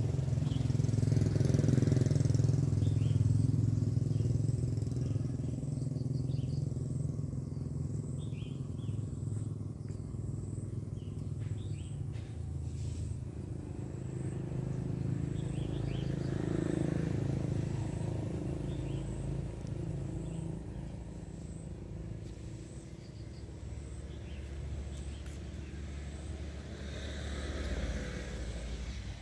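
Low engine rumble of passing road vehicles, swelling and fading a few times.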